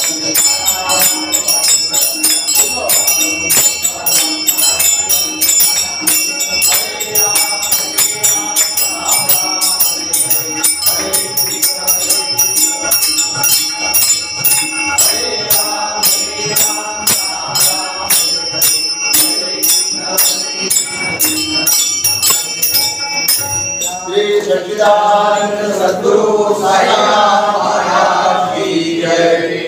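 Temple congregation singing a devotional song to a quick, steady beat of small hand cymbals (taal). The cymbals stop about six seconds before the end, leaving the voices singing on.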